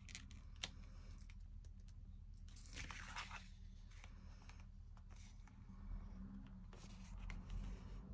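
Faint rustling and light clicks of paper and card being handled, with a brief louder rustle about three seconds in.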